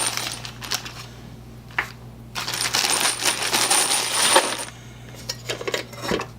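A batch of small metal screws clattering and jingling together as they are handled, in two spells of rattling with quieter pauses and a few single clicks between them.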